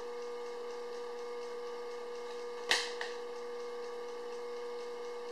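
Steady background hum with one fixed tone, broken about halfway through by a single sharp click.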